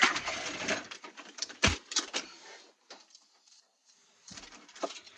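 Clattering and clicks of a TV tuner's metal chassis and parts being handled and pulled apart, with a sharp knock about a second and a half in. A short pause of near quiet follows before the clicking starts again near the end.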